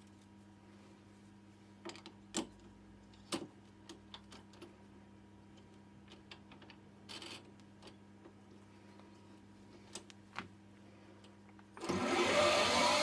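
Small Hercus CNC lathe humming quietly, with a dozen or so sharp clicks spread through it. Near the end, a loud, steady machining noise starts abruptly.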